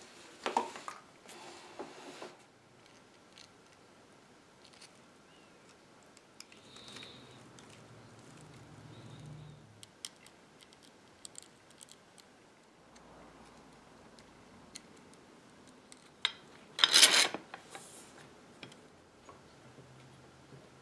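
Metal bar clamps and a wooden chair being handled on a workbench: scattered clicks and knocks, then one loud, brief scraping rattle about three-quarters of the way through.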